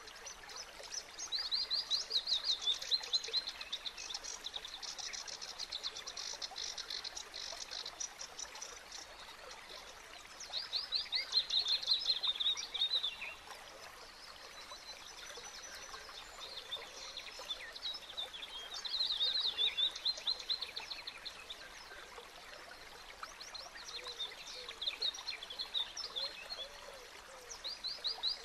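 A small bird singing in bouts of fast, high, repeated chattering notes, four phrases in all, the first and longest lasting several seconds, over a faint background hiss of water.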